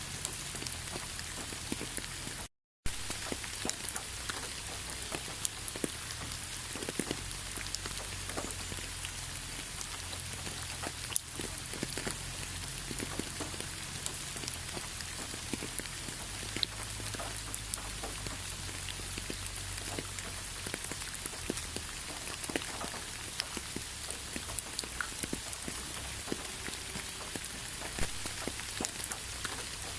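Steady rain falling, with many close drops ticking and pattering on surfaces over the even hiss. About two and a half seconds in, the sound drops out to silence for a split second.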